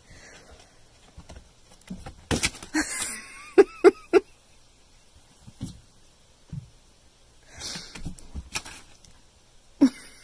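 Tabby kitten hissing in short bursts at its own reflection in a mirror, with three quick short cries about four seconds in.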